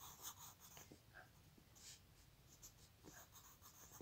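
Faint scratching of a pencil writing on ruled notebook paper, in short irregular strokes.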